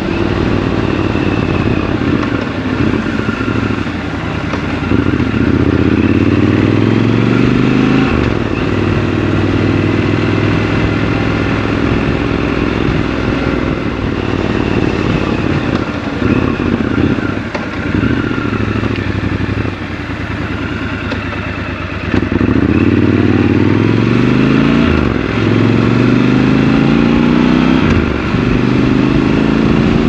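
Triumph Scrambler 1200 XC's 1200 cc parallel-twin engine under way. The revs rise several times as the bike accelerates and drop back at the gear changes and roll-offs.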